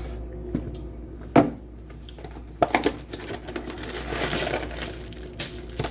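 Kitchen handling sounds: a few sharp clicks and knocks, then a couple of seconds of dense rattling and rustling in the middle, with a last pair of clicks near the end.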